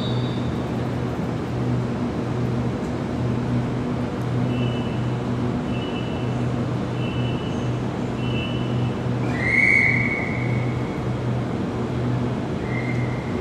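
Double-deck electric suburban train standing at the platform, its equipment running with a steady low hum that pulses about once a second. Partway through come four short high beeps about a second apart, then a longer high tone and a short one near the end.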